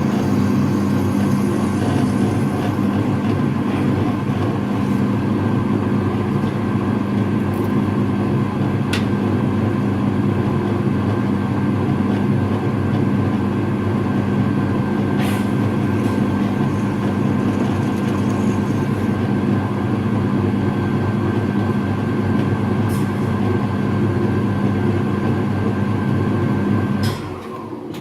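Electric drill running steadily while drilling a hole, with a few small ticks along the way; the motor shuts off and winds down near the end.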